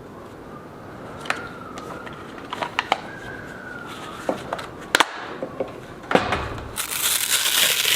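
Handling noises: scattered sharp clicks and knocks, with a faint wavering whine in the first half, then loud rustling from about seven seconds in.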